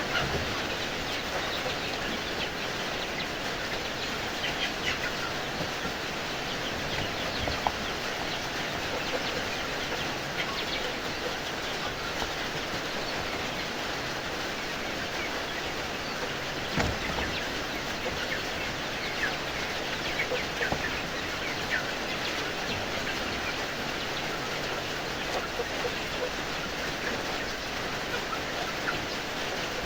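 Kampung chickens chirping and clucking now and then over a steady rushing background noise.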